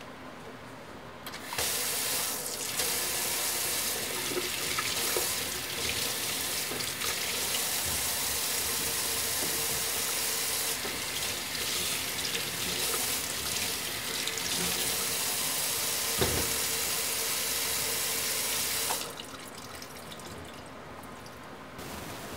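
Water running steadily for about seventeen seconds, starting a second and a half in and cutting off a few seconds before the end, with a single knock near the end of the flow.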